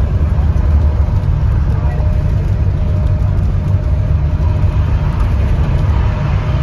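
Inside a bus cruising at freeway speed: a steady low rumble of engine and road noise fills the cabin, with a faint steady whine above it.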